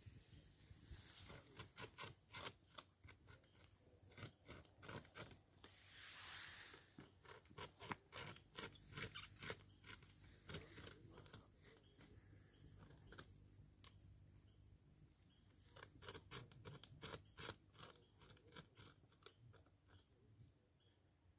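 North American beaver gnawing a tree trunk with its incisors: a faint, fast, irregular run of crunching, scraping bites on the wood.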